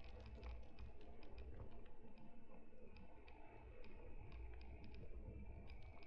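Electric mountain bike being ridden, heard from a camera strapped to its frame: a low rumble with many irregular small clicks and rattles, and a faint steady high whine.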